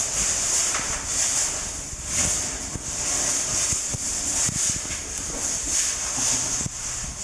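Rustling and rubbing handling noise from a hand-carried camera moving through a cave: a hiss that swells and fades about once a second over an uneven low rumble, with a few faint knocks.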